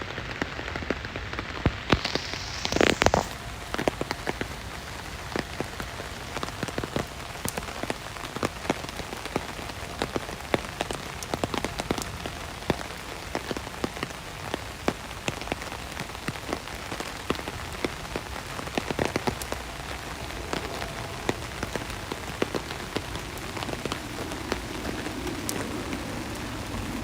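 Steady rain falling, with many individual drops landing close by as sharp ticks. A louder rush of noise about three seconds in, and a low hum building near the end.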